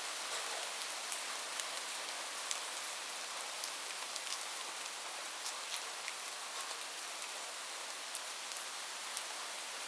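Steady rain falling, a soft high hiss with many individual drops ticking sharply against a surface.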